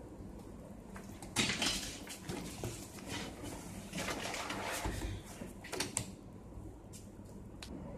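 Handling sounds of someone settling at a classroom desk: clothing and bag rustling in two stretches, then notebooks set down and shuffled on the desk with a few sharp knocks and clicks near the end.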